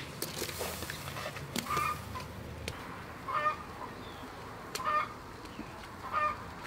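Chicken clucking: about four short calls roughly a second and a half apart, with a few light knocks of pieces dropping into a metal wok.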